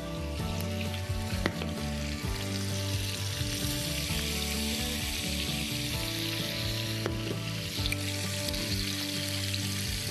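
Prawns, peeled tails and whole shell-on ones, sizzling steadily in hot neutral and sesame oil in a frying pan.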